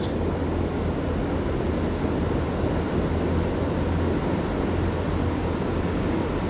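Wind buffeting the microphone outdoors: a steady, dense rumble with no clear pitch, and a few faint light ticks scattered through it.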